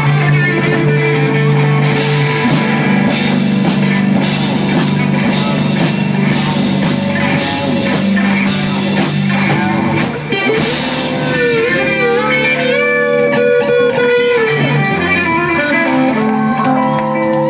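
Loud live rock jam: electric guitars over a drum kit, with cymbal hits about once a second for the first half, then long bending guitar notes in the second half.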